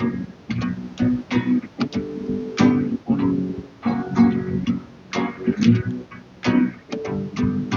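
Song with plucked guitar and bass guitar, recorded with very bad sound quality and nothing in the upper treble; the uploader suspects it was picked up from headphones.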